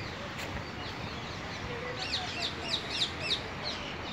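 A bird calling in a quick series of short, high chirps, about four or five a second, starting about two seconds in, over a steady low background hiss.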